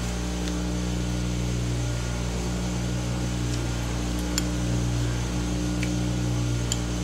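Steady low mechanical hum made of several fixed tones, with a few light clicks of a metal fork against a ceramic bowl, the sharpest about halfway through and just before the end.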